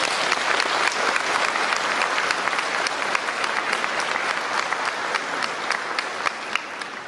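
Audience applauding in a hall, a dense run of many hands clapping that gradually tapers off near the end.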